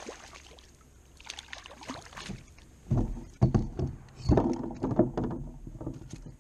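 Irregular knocks and thumps against a kayak hull, bunched together from about three seconds in, as a freshly landed crappie is handled aboard, with a few light clicks before them.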